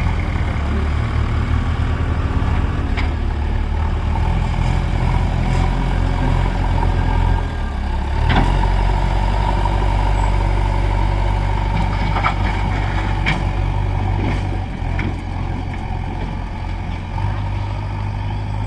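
JCB backhoe loader's diesel engine running steadily under load as it works its front bucket in soil. A few sharp knocks sound along the way, the loudest about eight seconds in.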